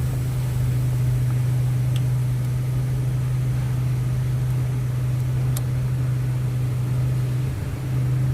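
A steady low machine hum at one pitch, briefly dipping near the end, with a couple of faint ticks.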